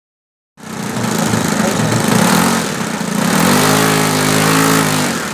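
After half a second of silence, a large-scale RC biplane model's engine running on the ground, with a brief rev about halfway through where its pitch rises and then falls back.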